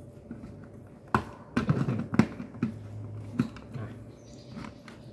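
A plastic DIN-rail module being pushed and worked onto its mounting rail by hand, giving a string of sharp clicks and knocks, about six of them. Its clip is stiff and has not yet snapped into place.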